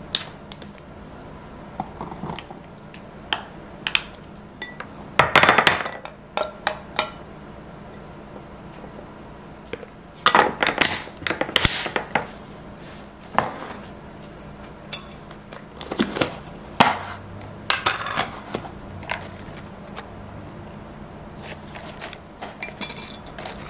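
Kitchen handling sounds: scattered clinks, knocks and clatters as an opened tin can, a small mesh strainer and a glass food container with a snap-on lid are handled and set down on a counter, the busiest stretches about five and ten seconds in. A faint steady hum runs underneath.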